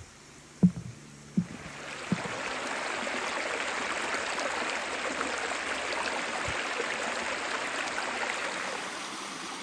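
A few heavy footsteps thud on a wooden plank footbridge in the first two seconds. Then a shallow creek rushes steadily over smooth sloping bedrock, close up.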